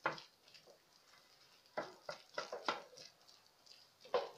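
Hand wire whisk stirring thick oat dough in a glass bowl, its wires knocking against the glass in sharp taps: one at the start, four in quick succession about two seconds in, and another near the end.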